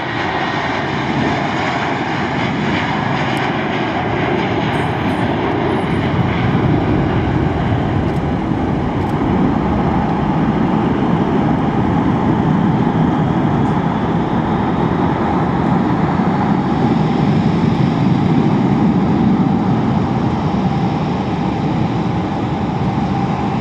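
Airbus A320-232 jet engines (IAE V2500 turbofans) at takeoff thrust: a loud, steady jet engine noise through the takeoff roll and climb-out, swelling slightly as the aircraft climbs away. A faint high fan whine fades out in the first second.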